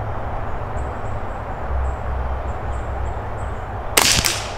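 A single shot from a Ruger 10/22 semi-automatic rifle firing CCI Standard Velocity subsonic .22 LR ammunition: one sharp crack about four seconds in, with a short ringing tail. Faint high chirps sound in the background before it.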